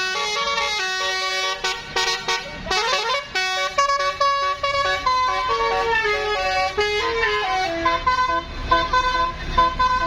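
Bus telolet horn (a Basuri multi-tone melody horn) playing a fast tune of stepping notes, with a quick rising glide about three seconds in. A low engine rumble comes up near the end.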